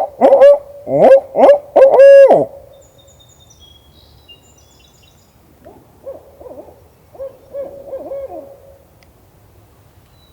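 Barred owl hooting, most likely a hunter's owl locator call blown close by to make a turkey gobble: a loud run of rising-and-falling hoots ending in a long drawn-out one, then a quieter similar hooting series about six seconds in. Faint songbird chirps sound between them.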